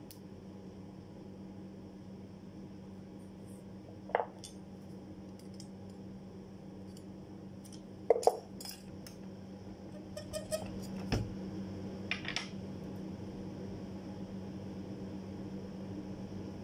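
Sharp metallic clicks and clinks of a steel cutting-rule blade being handled and worked in a hand bending tool. The loudest is a close pair about halfway through, followed by a cluster of lighter clicks, over a steady low hum.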